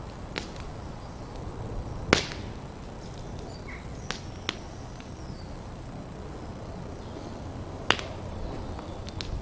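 Burning thatch and timber crackling. Irregular sharp pops come every one to four seconds, the loudest about two seconds in and another near eight seconds, over a steady low rumble.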